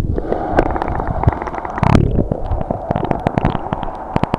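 Pool water heard through an underwater camera microphone: a muffled, rumbling churn with rapid bubbly clicks and pops as a swimmer does breaststroke kicks close by.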